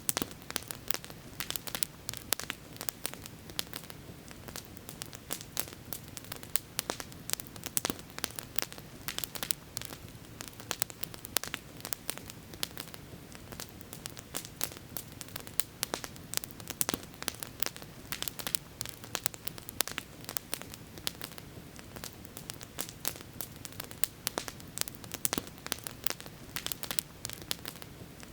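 Campfire burning with constant, irregular crackling and popping over a low steady rush of flames.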